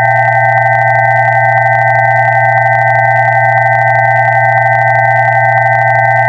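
Electronically generated steady pure tones sounding together: a low hum under a cluster of close mid-pitched tones and two higher tones, all held constant, with a slight wavering where the close tones beat against each other.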